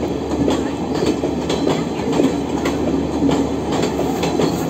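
A train rolling along the track, its wheels clacking over the rail joints in a quick, uneven rhythm over a steady low rumble.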